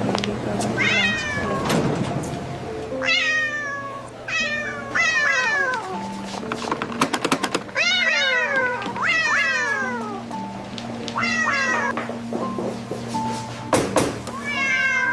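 A cat meowing over and over, about eight meows, each falling in pitch, over steady background music. A few sharp clicks sound around the middle and again near the end.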